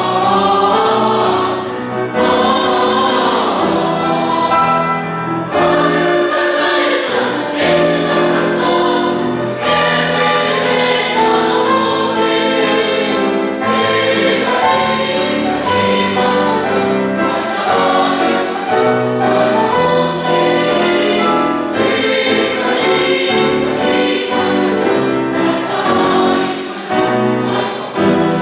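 Boys' and youth choir singing a song in several voice parts at once, in steady sung phrases.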